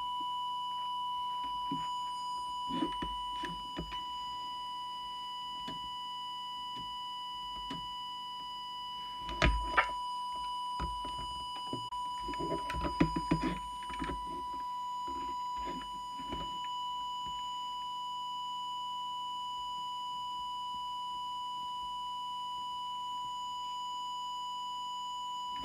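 Audio test oscillator giving a single steady, high, whistle-like test tone, fed in to check a CB transmitter's FM deviation. Handling clicks and knocks from the bench come about three seconds in and again around ten and thirteen seconds.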